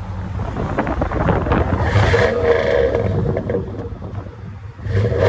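2003 Dodge Durango's 4.7L V8 running through a Flowmaster 40 Series muffler and 4-inch tip, idling and revved, louder about two seconds in and again near the end.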